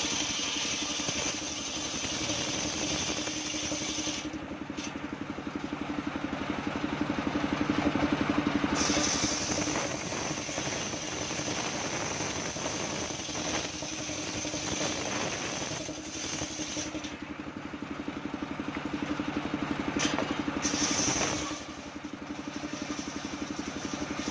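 Engine-driven homemade circular saw bench running steadily while its blade rips a coconut-wood plank lengthwise. A high, hissing cutting noise comes and goes over the engine as the wood is fed through the blade.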